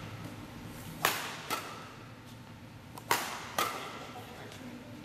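Sharp cracks with a short echo, coming in pairs about half a second apart, one pair about every two seconds.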